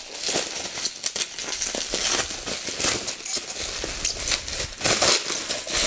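Plastic bubble wrap crinkling and rustling as hands pull it apart and peel it off a lightsaber hilt, with irregular crackles throughout.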